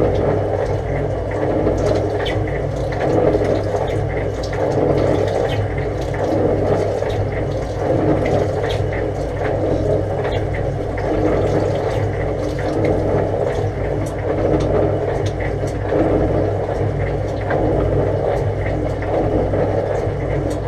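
Old 1947 MacEntee bore pump running steadily, with a constant motor hum and water rushing through the pump and pipework.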